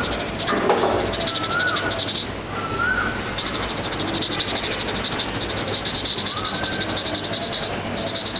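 Graphite pencil shading on drawing paper: rapid back-and-forth scratchy strokes in long runs, pausing briefly about two seconds in and again near the end.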